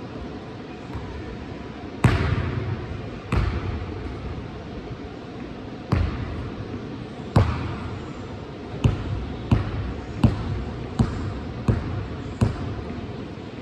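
A basketball bouncing on a gym floor: about ten separate bounces, spaced irregularly at first and then coming roughly every three-quarters of a second near the end, each one echoing through the large hall.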